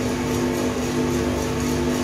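Small drum coffee roaster running: a steady hum from its motor and fan, with a few fixed tones over a noisy haze. The roast is in its early drying phase, just past the turning point.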